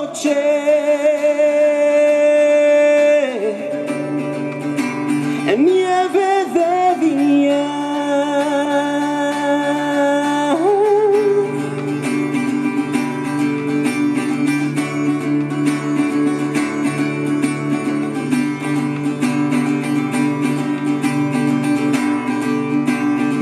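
Live band music with guitar, under a male singer holding long wordless notes with vibrato twice in the first half; from about eleven seconds in, the accompaniment carries on alone.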